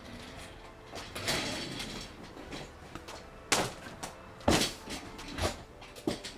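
Knocks and bumps of things being handled in a small room, with a rustling swell about a second in and a few sharper thumps in the second half.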